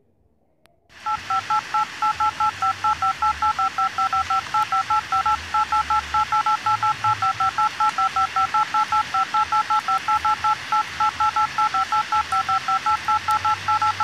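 Electronic wake-up alarm beeping, starting suddenly about a second in: quick two-tone beeps, about five a second, repeating in short groups.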